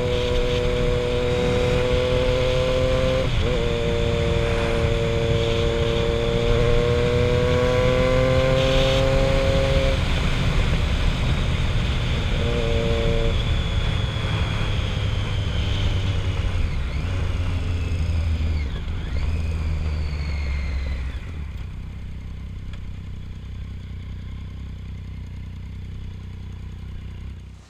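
Triumph Street Triple 675R's three-cylinder engine running on the move, with wind rush. The engine note falls and the sound gets quieter about two-thirds of the way through.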